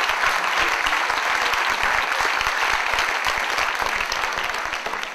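Audience applauding, a dense, steady clapping that begins to thin out and fade near the end.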